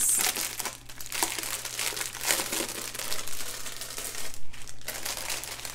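Clear plastic bags of diamond painting drills crinkling and rustling as they are handled and sorted by hand, a steady crackle of small clicks.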